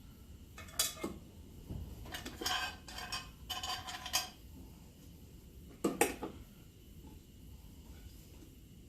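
Small metal parts and hardware clinking and ringing as they are handled, a cluster of clinks in the first half and a sharp metallic clack about six seconds in.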